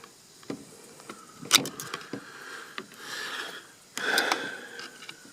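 Hand tools and small starter parts being handled: several sharp clicks and clinks, the loudest about a second and a half in, with spells of scraping and rattling around three and four seconds in.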